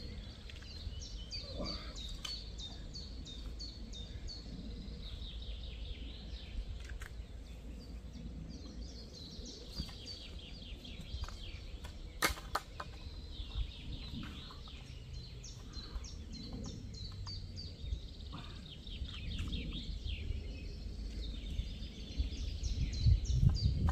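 Songbirds chirping and singing over a steady low rumble of wind on the microphone, with scattered clicks and knocks from a carp landing net being assembled, one sharp click about twelve seconds in. Low rustling and handling noise grows louder near the end.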